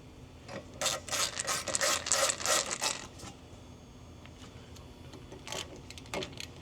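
Hand-tool work on a car's brakes. For about two seconds there is a quick run of rasping strokes, then a couple of faint knocks near the end.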